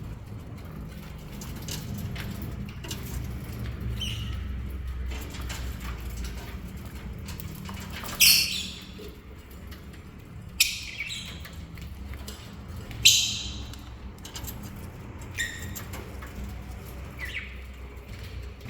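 Lovebirds giving sharp, shrill shrieks: about five short calls spaced a couple of seconds apart in the second half, the three loudest near the middle, over a low steady hum.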